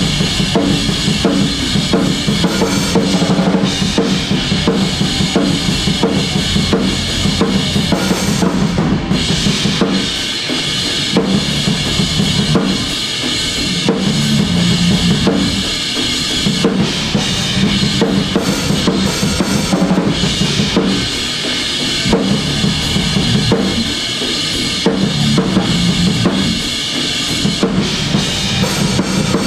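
Drum kit played hard through a song at band practice: kick drum, snare and cymbals keeping a driving beat, with the band's sustained chords underneath. The playing eases off briefly a few times, about a third of the way in and again later.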